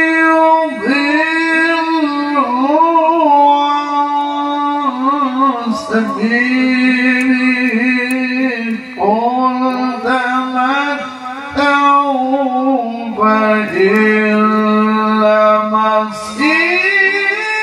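Male qari reciting the Quran in the melodic tilawah style into a handheld microphone, holding long ornamented notes in sustained phrases with short breaths between them.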